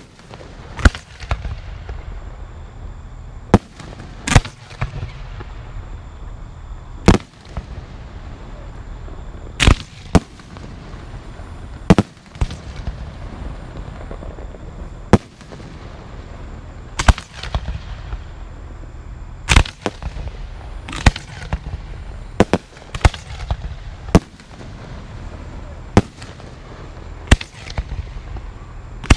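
Aerial fireworks shells bursting overhead: a string of about twenty sharp bangs at irregular intervals, with a low rumble between them.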